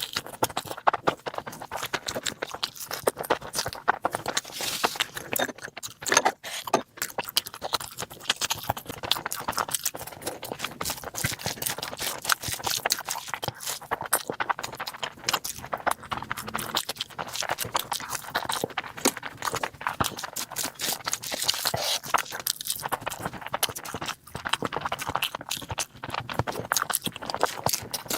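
Close-miked eating sounds: rapid, continuous chewing, lip-smacking and wet mouth clicks as curry and rice are eaten.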